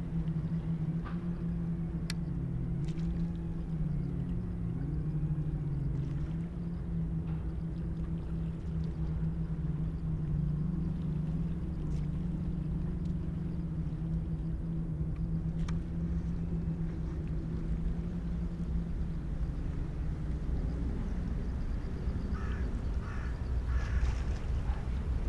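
Distant jet airliner engines running with a steady low drone and a slowly wavering hum. A few short high chirps come near the end.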